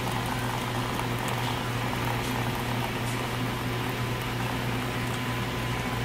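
Coffee machine dispensing coffee: a steady low hum from the machine under the hiss and trickle of a thin stream pouring into a paper cup.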